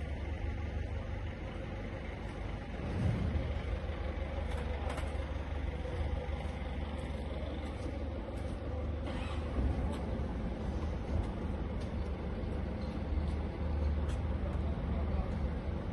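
One-bin batching machine running: a steady low mechanical hum with a faint steady whine above it, and scattered light clicks and knocks throughout.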